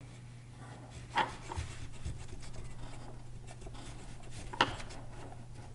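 Black marker scratching on paper in short strokes as a drawing's outline is traced, over a steady low hum. Two sharp taps stand out, about a second in and again some three seconds later.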